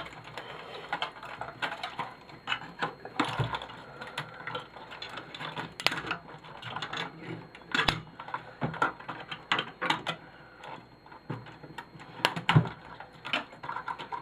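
Irregular clicks, knocks and rattles of hand tools and small metal and plastic parts being worked loose while stripping a small CRT television, around the deflection yoke and its wiring. The loudest knock comes near the end.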